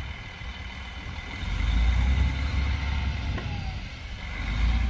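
Delivery truck's engine running, a deep rumble that grows louder about a second and a half in.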